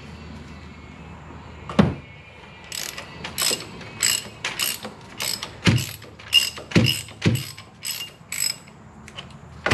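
Hand ratchet wrench on a long extension and oil filter cap adapter, clicking in short repeated strokes, about two a second, as it loosens the oil filter housing cap.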